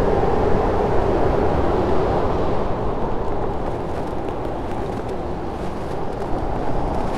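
Steady blizzard wind, a dense rushing noise that eases a little about halfway through.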